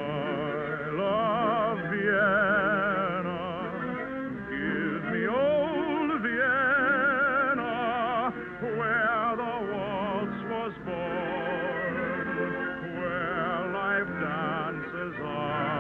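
Operetta singing with a wide vibrato on long held notes, over an orchestra: a Viennese waltz song from an early-1950s radio broadcast, with a thin, dull sound that has no highs.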